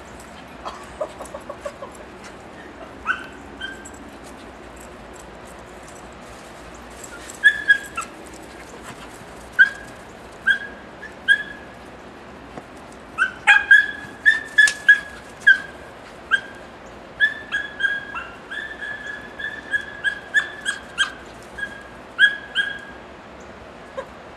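A dog barking in short, high-pitched yelps: a few scattered ones at first, then quick runs of them through the second half.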